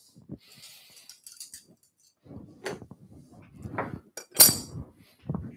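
Hand-plane blade and brass chipbreaker clinking and knocking as they are unscrewed, handled and set down on the bench, with a series of small clicks and one sharp metal clink about four and a half seconds in.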